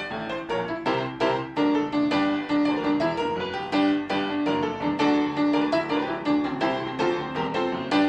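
Piano music: a piano playing a steady run of struck chords and notes, several a second, without singing.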